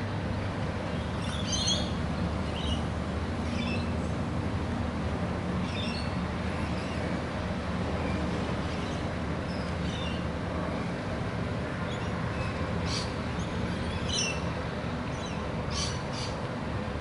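Rainbow lorikeets chirping in short, scattered calls every second or two, over a steady low background rumble.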